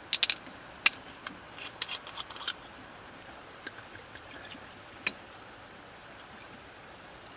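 A quick series of sharp clicks and clinks from hard objects being handled, bunched in the first two and a half seconds, with one more click about five seconds in, over a faint steady hiss.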